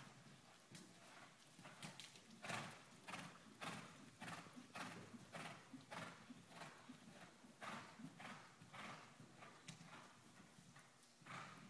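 Faint hoofbeats of a cantering horse on the soft sand footing of an indoor riding arena, a regular beat a little under twice a second.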